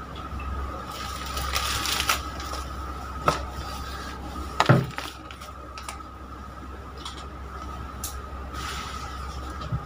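Kitchen items being handled and set down on a counter: a few scattered knocks and clatters, the loudest about halfway through, over a steady low hum.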